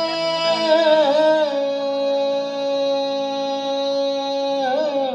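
A singer holding a long, drawn-out note of a slow devotional Marathi song, with ornamental turns near the start and again near the end, over a steady accompanying drone.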